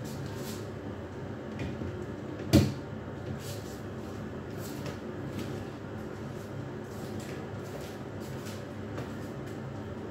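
One sharp knock about two and a half seconds in, with faint scattered clicks and taps of handling around it, over a steady low background hum.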